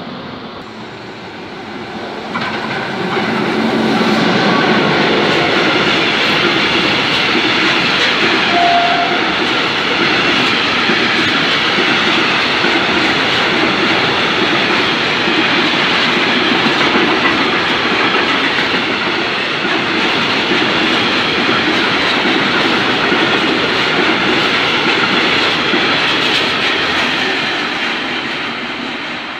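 Freight train of tank wagons hauled by an electric locomotive running through, its wheels clattering steadily over the rails. The sound swells about three seconds in as the train draws level and begins to fade near the end.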